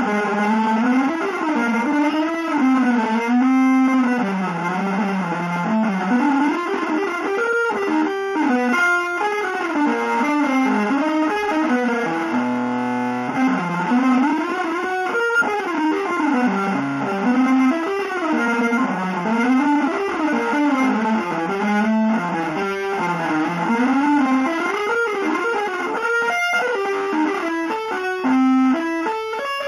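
Electric guitar playing a continuous single-note line that winds up and down in pitch. It holds one long note about halfway through, and the notes turn shorter and more separated near the end.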